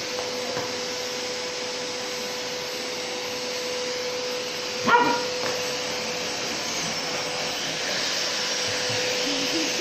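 Vacuum cleaner running steadily with a constant hum, and a Samoyed barking once at it about five seconds in.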